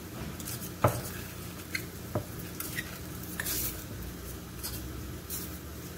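A few light knocks and clinks of cookware and utensils, the loudest about a second in, with a brief hiss about three and a half seconds in, over a faint steady low hum.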